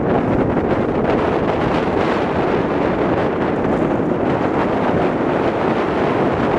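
Wind blowing across the microphone: a steady, loud rushing noise with no let-up.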